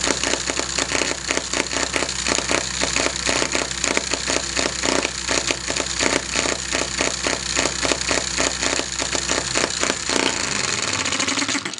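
Tiny air-cooled model hit-and-miss engine running, a rapid, slightly uneven string of sharp firing pops as its governor lets it fire and skip. The pops stop about ten seconds in, leaving a softer steady sound that fades away.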